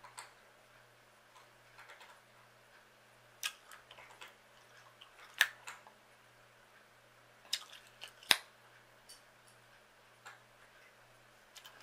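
Gum being chewed close to the microphone: a handful of sharp, irregular clicks and snaps, the loudest about five and a half and eight seconds in.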